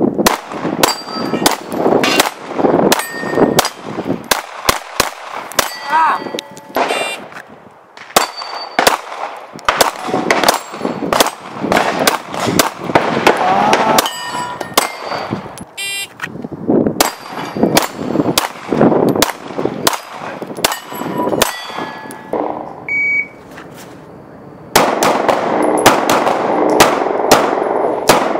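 Pistol shots fired in quick strings, with steel targets clanging and ringing as they are hit. A short beep sounds during a lull about two-thirds of the way through, and then the firing resumes.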